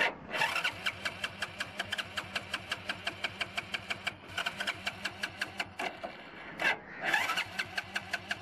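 A Hero Passion motorcycle's electric starter cranking its single-cylinder engine: a fast, even chugging of about six beats a second, with a couple of short breaks. The engine turns over but does not catch, with its petrol cut off and acetylene gas fed into the air filter in its place.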